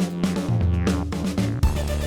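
Electronic background music with sustained bass notes and a beat, with a heavy hit about one and a half seconds in.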